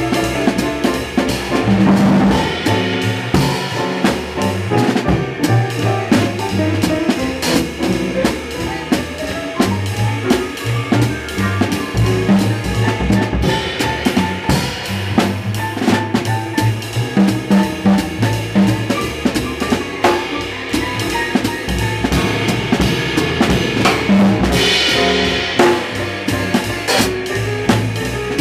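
Live jazz with a drum kit played close up, the ride cymbal and snare loudest, over a plucked double bass line. A brighter cymbal wash comes in near the end.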